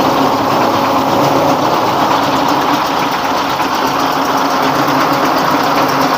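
Rice huller mill running steadily while husking paddy, driven by a 24 hp single-cylinder dompeng diesel engine: a continuous engine hum under dense machine noise.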